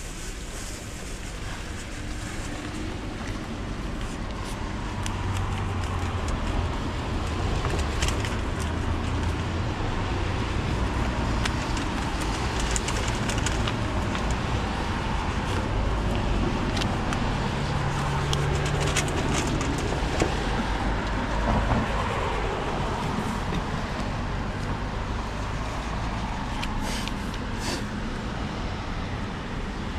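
Road traffic rumbling steadily, growing louder a few seconds in, with a vehicle passing about two-thirds of the way through.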